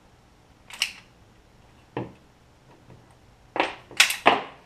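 Clicks and knocks of gun parts being handled and set down on a wooden workbench: a couple of single taps, then a quick cluster of three louder knocks near the end.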